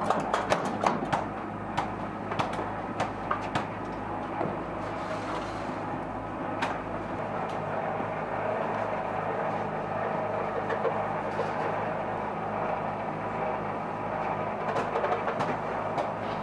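Steady mechanical hum with a busy clatter on top, and many sharp metallic clicks and knocks in the first few seconds, thinning out afterwards.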